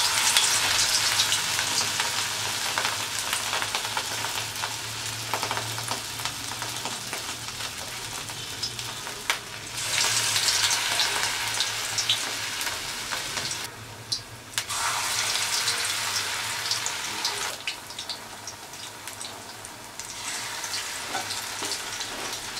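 Battered pumpkin flowers deep-frying in hot oil: a steady sizzle full of fine crackles, loudest at the start. The hiss drops off briefly a few times and picks up again.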